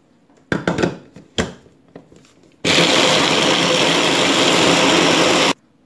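Electric mini chopper with a glass bowl grinding biscuits, cocoa and butter into crumbs: a few knocks as its motor head is set on the bowl, then the motor runs loudly for about three seconds and cuts off suddenly.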